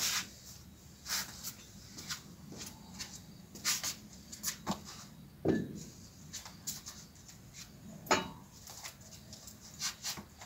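Faint rustling and small clicks and knocks of a man moving about and handling a dumbbell at a workout bench, scattered and irregular, with two louder short sounds about five and eight seconds in.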